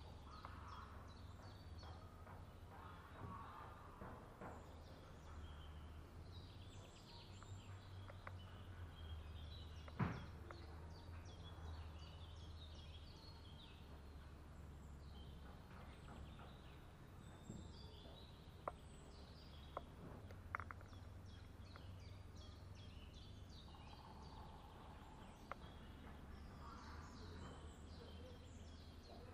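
Faint outdoor ambience: small birds chirping in short high calls on and off, over a low steady hum, with a few sharp clicks or knocks, the loudest about ten seconds in and three more around the middle.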